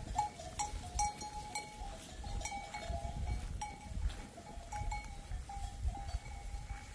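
Several sheep bells clinking irregularly and overlapping as a flock of ewes moves and grazes, with a low rumble underneath.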